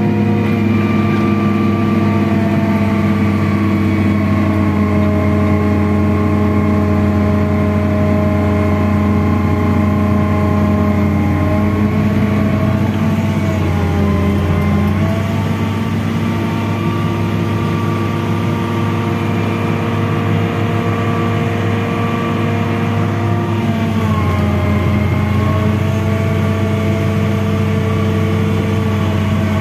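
Hydraulic excavator's diesel engine running steadily close by. Its pitch sags briefly about twelve seconds in and again near twenty-four seconds, as the engine takes hydraulic load.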